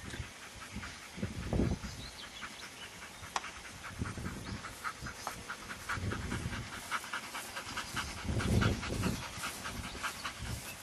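Belgian Malinois panting fast and regularly while heeling, with intermittent low rumbling bursts.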